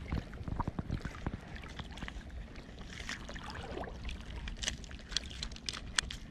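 Small waves lapping and sloshing close by over a low wind rumble, with scattered light clicks and ticks, more of them in the second half.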